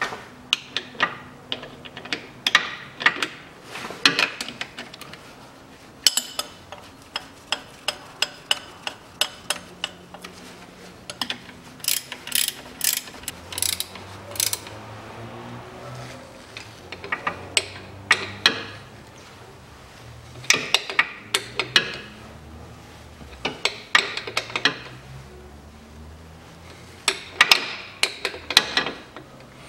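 Socket ratchet clicking in quick runs, with short pauses between, as the nuts of a new rear engine mount are tightened, with the odd clink of steel wrenches.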